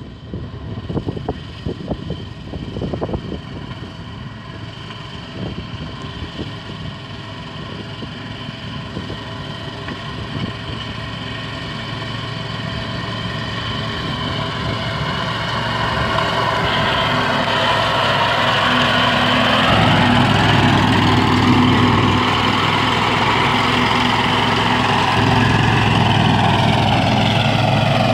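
Hysoon 380 mini loader's engine and front-mounted mulching mower deck running as it cuts tall grass. It grows steadily louder as the machine approaches and passes close by, rising in pitch about two-thirds of the way in, then runs loud and steady.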